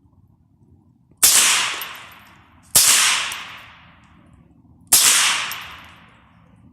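Three gunshots from a .22LR firearm, the second about a second and a half after the first and the third about two seconds later. Each crack is followed by an echo that fades over about a second and a half.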